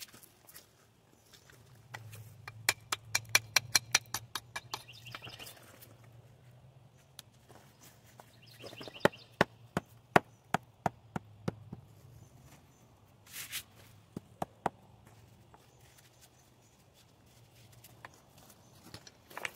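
Hard tapping on stone masonry in two runs of a few seconds each, about three to four sharp taps a second, with short rasping scrapes just before each run.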